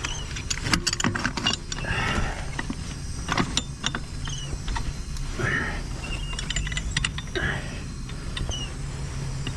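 Metal clicks and light scraping as the bolt of an adjustable gas-riser foundation bracket is worked and tightened by hand, many short irregular clicks with a few small squeaks. A steady low hum runs underneath.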